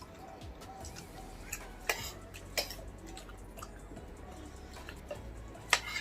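Cutlery clicking and clinking against a plate during a meal: a few sharp clicks, the loudest near the end.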